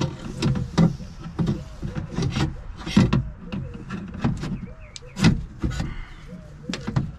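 A replacement window regulator and motor assembly being worked by hand into a car door's cavity: irregular clunks, taps and rattles of the part against the door's sheet-metal inner panel, with louder knocks about three seconds in and again about five seconds in.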